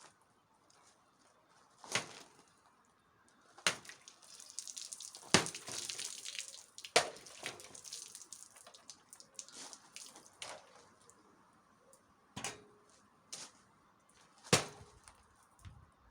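A homemade dagger striking a test target in a series of about six sharp chopping hits at uneven intervals. A hissing noise fills the gap between strikes for a couple of seconds in the first half.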